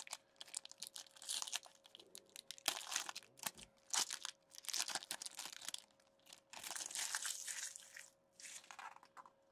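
Foil trading-card pack being torn open and crumpled by hand: a run of crinkling, crackling foil and short tearing rips in irregular bursts, stopping shortly before the end.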